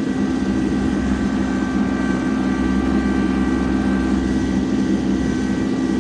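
Farm tractor engine running at a steady speed: a constant drone with a thin, steady whine above it.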